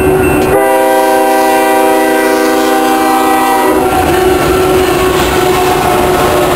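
Union Pacific diesel locomotives passing close by. About half a second in, the air horn sounds one long blast of about three seconds. After it stops, the engines' rumble and the wheels on the rails carry on as the lead units go by.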